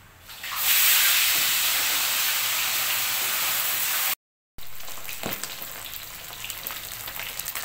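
A large whole milkfish frying in hot oil in a wok. A loud sizzling hiss starts about half a second in as the fish goes into the oil and holds steady. After a brief break just past the middle, the oil sizzles on a little more quietly with small crackling pops.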